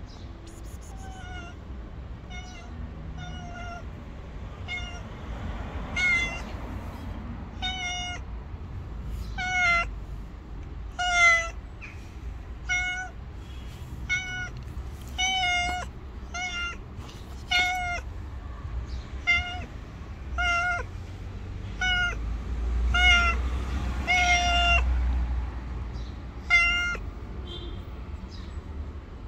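Tabby cat meowing over and over in short meows, about one a second, with one longer, drawn-out meow late on.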